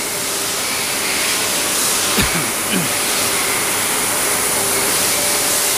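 Steady hissing din of a machining floor with its machine tools running, with faint humming tones under it and a single short knock about two seconds in.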